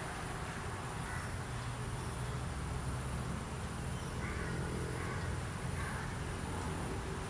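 Steady outdoor background of a low rumble, like distant traffic, with a few faint bird calls about four to six seconds in.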